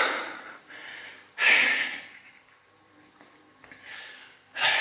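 A man's loud, breathy gasps and exhalations: three short, hissy bursts, the first at the start, one about a second and a half in and one near the end, with a quiet stretch between.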